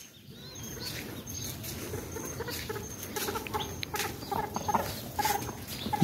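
Domestic fowl clucking and calling in short, scattered bursts, more often in the second half, over a low background rustle.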